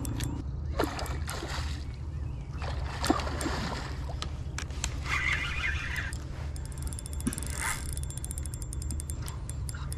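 A steady low rumble with short bursts of rustling and a few sharp clicks as a spinning rod and reel are handled while playing a hooked carp.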